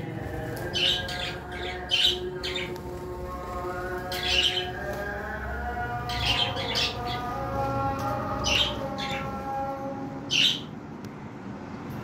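Cockatiels giving short, sharp chirping calls in quick clusters of two or three, every second or two, with the loudest coming near the end.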